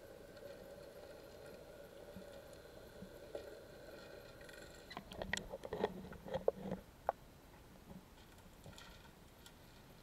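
Faint steady electric motor hum of a battery-powered Hammerhead pool vacuum, which stops a little under halfway through. It is followed by a couple of seconds of sharp knocks and clatter.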